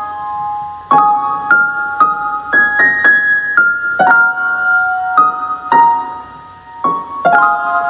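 Background music: a gentle piano or electric-keyboard melody over held chords, a new note about every half second, softening briefly near the end.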